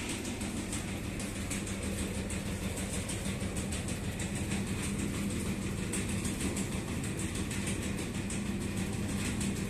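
Motorised sieving machine for granulated palm sugar running steadily: a constant motor hum with a fast, continuous rattle from the shaking sieve.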